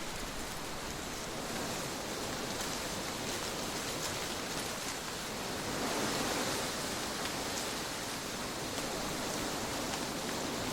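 Steady trade wind blowing as an even rush of noise, swelling a little about halfway through.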